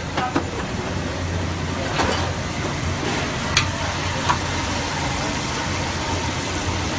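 Battered fish deep-frying in a karahi of hot oil over a gas burner: a steady sizzling hiss with a low hum under it, broken by a few sharp clinks of utensils.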